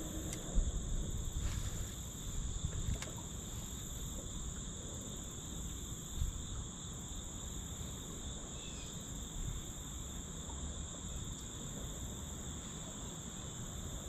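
Steady high insect chorus, like crickets, running without pause over an uneven low rumble. A few light knocks come in the first three seconds, the sharpest about half a second in.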